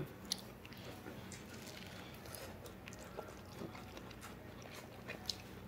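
Faint chewing and biting of corn on the cob, with a few small sharp mouth clicks and smacks.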